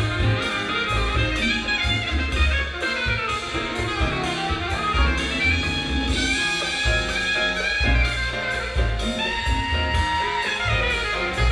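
Jazz with brass instruments and a steady beat, played through a 1940s Kofler Radio Bassano tube cinema amplifier and horn speakers.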